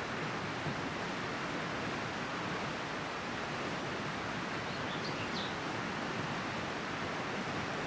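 River water rushing steadily, an even hiss. A brief faint high chirp sounds about five seconds in.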